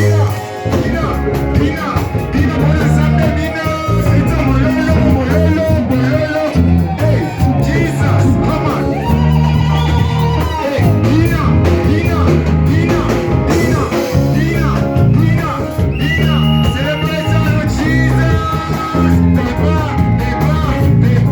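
Church praise band music with singing, driven by a strong repeating bass line.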